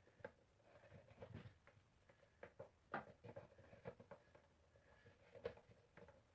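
Near silence with faint, scattered light taps and clicks, loudest about three seconds in and again near the end.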